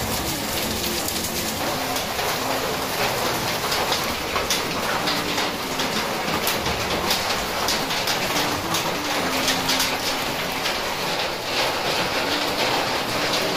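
Steady rain falling, with many drops pattering close to the microphone.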